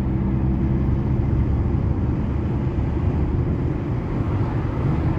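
Car engine and road noise heard from inside the cabin, a steady drone with the engine pulling under acceleration.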